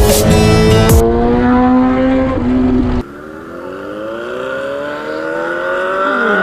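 Superbike engines accelerating hard, their pitch climbing steadily through the revs. Background music ends about a second in, and a sudden cut about three seconds in drops to a quieter engine that keeps rising in pitch.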